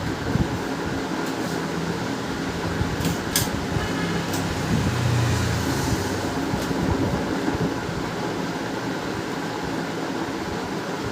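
Steady fan-like hum, with a few sharp clicks a few seconds in as printer parts are handled and fitted back together.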